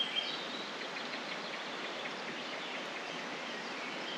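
Steady outdoor background hiss with a few faint bird chirps near the start.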